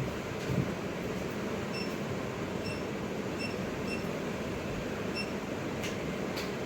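Steady fan-like air noise, with several short, high electronic beeps through the middle and two faint clicks near the end.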